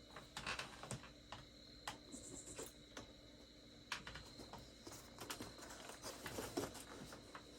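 Faint, irregular clicks and taps over a low steady hum.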